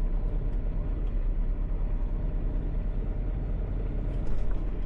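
A semi truck running, a steady low rumble with a few faint clicks about four seconds in.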